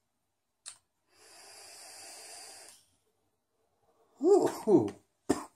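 A long, steady hissing draw on a vape box mod, then a loud throaty exhale of the vapour about four seconds in, and a short sharp breath near the end.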